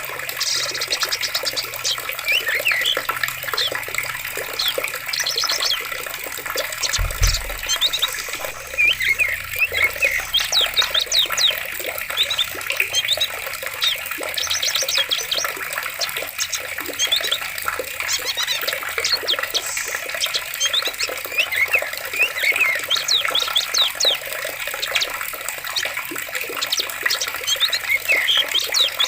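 Steadily running water, like a forest stream, with many birds chirping over it in quick, overlapping calls. A brief low thud about seven seconds in.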